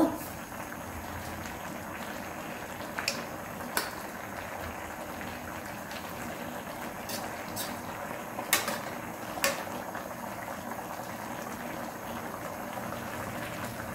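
Spicy red braising sauce of kodari-jorim bubbling at a rapid boil in an uncovered stainless steel pan over high heat, a steady bubbling hiss as the liquid reduces. A few light clicks of a metal ladle against the pan are heard as sauce is spooned over the fish.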